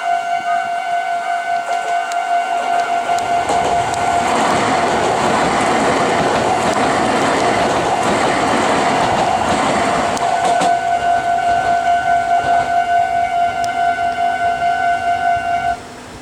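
Japanese level-crossing warning bell dinging in a steady repeating rhythm as a Meitetsu 4000 series electric train passes through the crossing. The train's noise swells from about three seconds in, is loudest mid-way and fades out by about thirteen seconds. The bell cuts off suddenly near the end.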